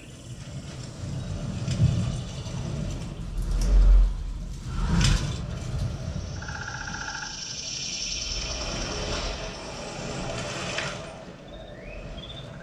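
Dolby Atmos demo soundtrack played through Focal Chora 826-D speakers: deep rumbling sound effects that swell and peak about four seconds in, then a brief pair of steady tones and a high airy hiss.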